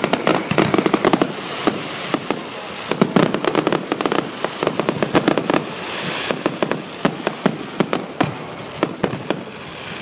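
Aerial fireworks going off in quick succession: many sharp bangs and crackles in dense clusters, one after another.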